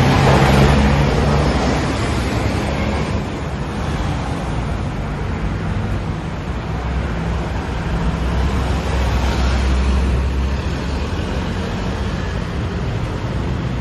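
Steady city road traffic, with the low engine rumble of passing vehicles swelling near the start and again about seven to ten seconds in.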